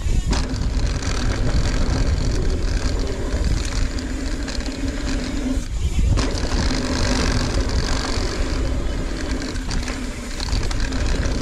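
Mountain bike ridden fast down a dirt trail, heard from a camera on the rider: wind rushing over the microphone and tyres rolling over the ground. The noise drops briefly about 6 seconds in and again near the end.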